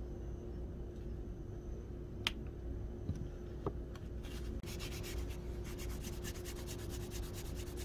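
Paper tissue rubbing over a steel chisel ferrule and handle in quick back-and-forth strokes, about eight a second, starting about halfway through. There are two light ticks before the strokes begin.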